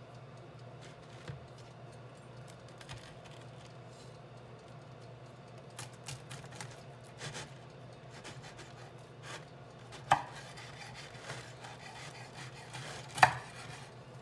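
Knife slicing a freshly baked pizza on a chopping board: scattered crunches and scrapes, with two sharp knocks of the blade on the board, about ten seconds in and near the end, over a steady low hum.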